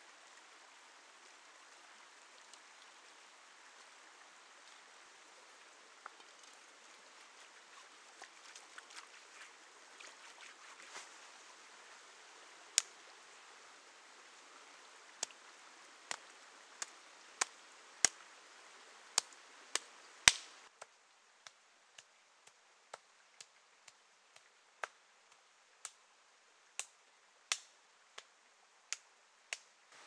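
Shallow forest stream running steadily over stones. From about halfway in, a series of sharp knocks comes roughly once a second, and these are the loudest sounds.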